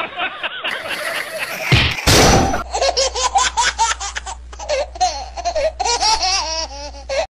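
Voices, then a loud sudden crash about two seconds in, followed by high-pitched laughter in quick repeated bursts.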